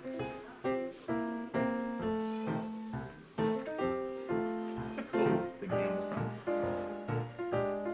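Background music: a melody of separate notes, each starting sharply and fading away, over a lower line of held notes.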